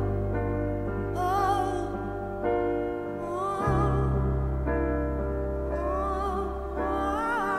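Wordless female vocal with wide vibrato, singing rising phrases over slow, sustained piano chords with deep bass notes; the chord changes about halfway through.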